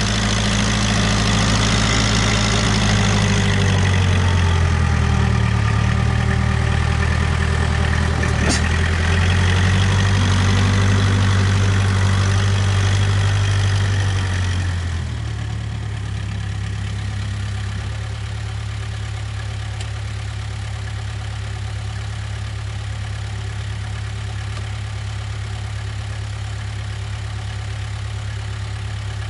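Case 580K backhoe's diesel engine running at raised revs, with a single sharp clank about eight seconds in, then dropping to a steady idle about halfway through.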